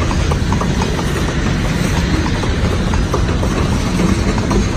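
Freight train of covered hopper cars rolling past close by: a steady, loud rumble of steel wheels on the rails with scattered short clicks and clacks.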